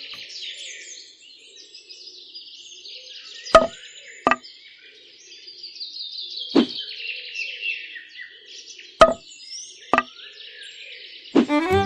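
Birdsong with rapid chirping and, running through it, about five short sharp taps as small miniature railing pieces are set onto the model house.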